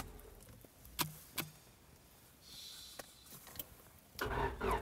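A car's starter cranks the engine, a rapid chug of about five beats a second, and stops at the outset without the engine catching. A couple of clicks and a short hiss follow, then about four seconds in the starter cranks again.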